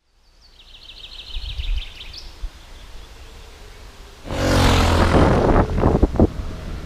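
A small bird trills briefly at the start. About four seconds in, a motorcycle engine starts running loudly, with a low steady hum and a few sharp cracks.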